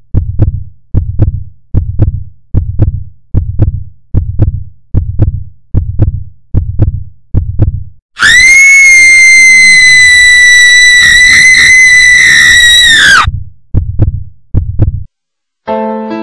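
Heartbeat sound effect: deep thumps about twice a second, broken by a loud, high, held shriek lasting about five seconds, then two more heartbeats. Soft electric piano notes begin near the end.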